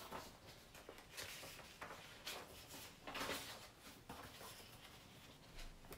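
Paper cards rustling and sliding against each other as a stack is handled and sorted, in several short swishes, the strongest about three seconds in.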